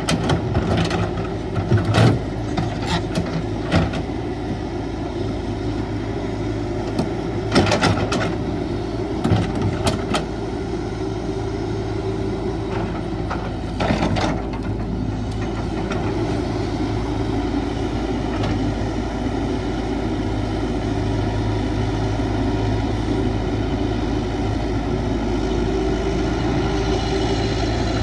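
Diesel engine of a Caterpillar 312 hydraulic excavator running steadily under work, with sharp metallic clanks and knocks: several in the first few seconds, a few more around eight to ten seconds in and one near fourteen seconds, after which the engine runs on steadily.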